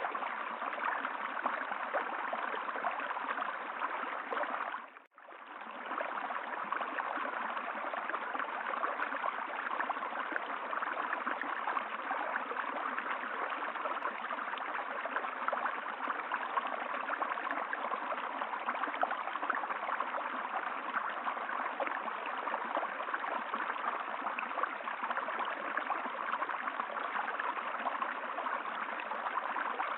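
Steady rush and gurgle of a flowing stream. It drops out for a moment about five seconds in and then fades back in.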